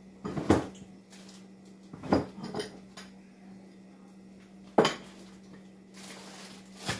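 Dishes and utensils being handled and set down in a kitchen: a handful of sharp clinks and knocks, the loudest about five seconds in.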